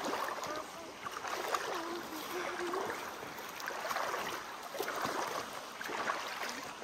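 Shallow stream flowing, with water splashing in irregular surges as a person wades across it on foot.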